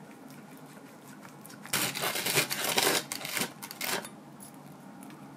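A knife sawing through a quiche baked in a toasted sliced-bread crust. It makes a run of crisp crunching and scraping strokes against the metal tart tin and the plate, starting about two seconds in and lasting about two seconds.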